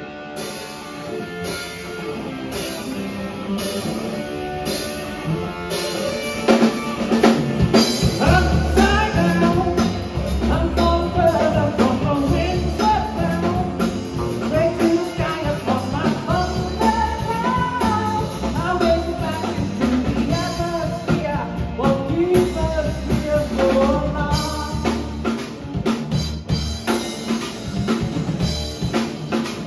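Live progressive/math-rock trio playing: drum kit, bass guitar and electric guitar. The piece starts quieter and builds, with the full band coming in louder about six seconds in.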